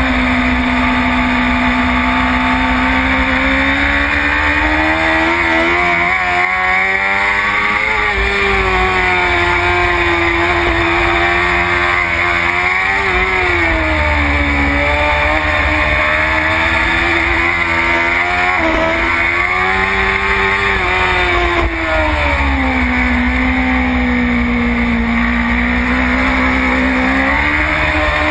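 BMW S1000RR superstock race bike's inline-four engine, recorded on the bike, racing around a circuit. Its note keeps rising and falling in pitch, with brief breaks as it is shifted, dropping lowest for a few seconds near the end before rising again.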